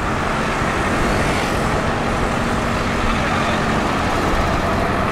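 Diesel tractor engines running steadily as a John Deere tractor approaches, a Massey Ferguson tractor running alongside.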